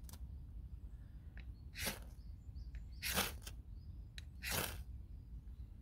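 Knife spine scraped hard down a ferro rod, three quick strikes about a second and a half apart, each a short rasping scrape, throwing sparks onto bark tinder to light a fire.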